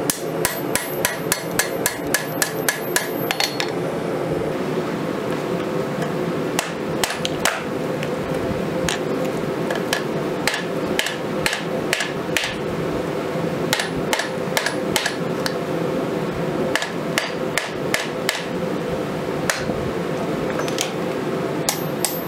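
Hand hammer striking red-hot steel on an anvil, forging an old crescent wrench into a knife blade: runs of quick ringing blows, about four a second at first, then shorter groups broken by pauses. A steady hum runs underneath.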